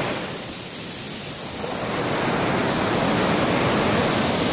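Sea surf breaking and washing through the shallows, a steady rush that dips shortly after the start and swells again about two seconds in.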